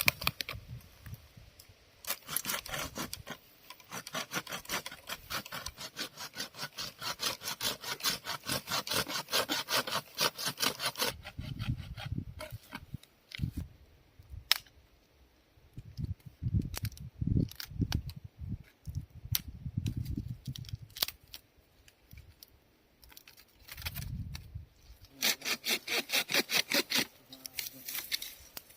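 Hand saw cutting dry firewood in quick back-and-forth rasping strokes, in a long run of about nine seconds and a shorter run near the end, with dull knocks of wood being handled in between.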